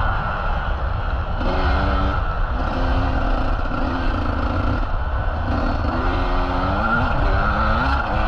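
Motocross bike engine revving, its pitch rising and falling several times as the throttle is worked, over a constant heavy rumble.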